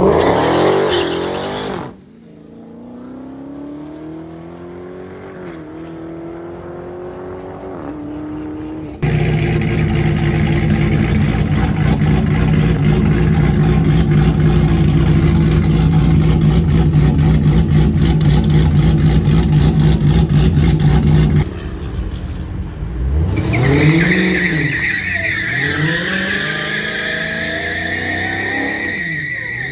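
A Dodge Challenger's V8 pulling away down the drag strip and fading, then a loud, steady V8 idle with an even pulse. Near the end the Challenger's engine revs up and down as it spins its rear tyres into a burnout, with a steady tyre squeal over the engine.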